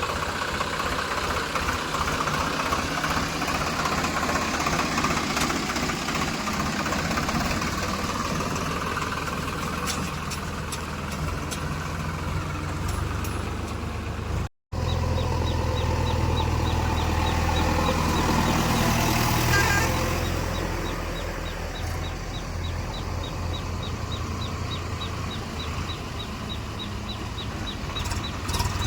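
Diesel engine of a JCB 3DX backhoe loader running steadily while it loads gravel. The sound drops out for a moment about halfway, and a faint rapid ticking comes in over the engine in the second half.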